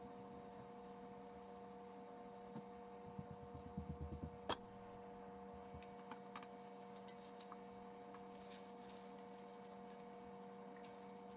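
Steady electrical hum under quiet handling noises: a run of soft low thumps ending in a sharp knock about four seconds in as a stainless steel bowl is set down on the towel-covered table, then light scattered rustles and ticks as paper scraps are handled.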